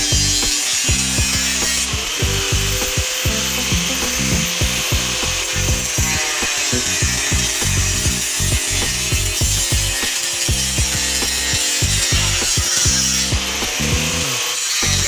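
Handheld angle grinder cutting through the wall of a black plastic crate, its disc grinding the plastic with a steady harsh noise.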